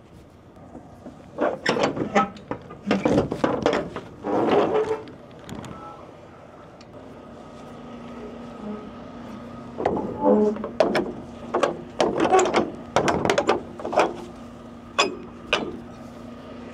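Rear swing doors of a dry van semi-trailer being unlatched and swung open: the metal locking bars, handles and door hardware clank and rattle in two bouts. A steady hum comes in about seven seconds in.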